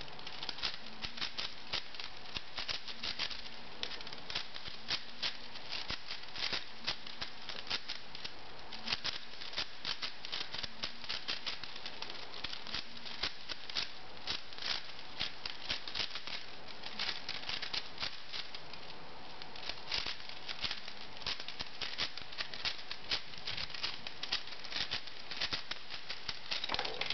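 V-Cube 6 (6x6 puzzle cube) being turned rapidly in a speedsolve: a continuous, irregular run of plastic clicks and clacks as its layers turn and snap into place, several to a second.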